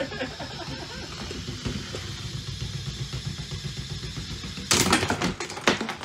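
Lego combat robot's spinning weapon whirring with a fast steady rattle, then about three-quarters of the way in a loud smash as it lands a hit and Lego parts break off, followed by two shorter clatters of pieces.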